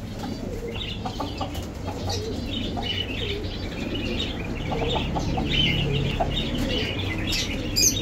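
Market poultry and caged birds: chickens clucking among many short, high chirps from small birds, with some wing flapping.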